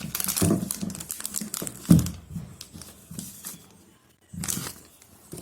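Plastic packaging around a new smartphone crinkling and tearing as it is unwrapped by hand, in irregular rustles, the loudest about two seconds in and another near the end.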